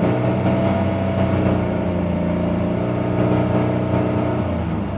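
2000 Chevy Blazer's 4.3-litre V6 running steadily at raised revs, dropping back shortly before the end. It has a misfire, logged on cylinder 4, which is less noticeable at these higher revs, where it smooths out a little.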